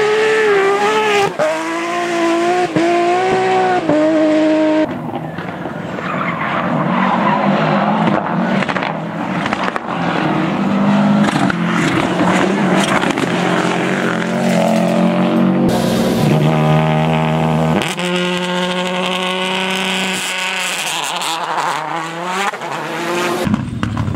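Rally cars at full speed: engines revving up and dropping back through gear changes, with stretches of tyre and skidding noise. Several clips are cut together, so the sound changes abruptly a few times.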